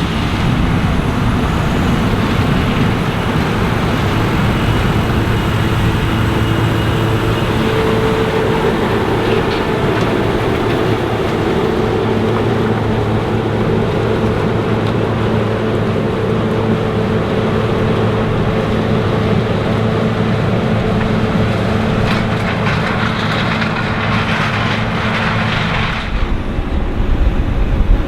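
New Holland CR 9.90 combine running steadily while harvesting corn, a constant engine drone over the noise of the threshing machinery. Near the end the sound cuts abruptly to a deeper rumble with wind buffeting the microphone.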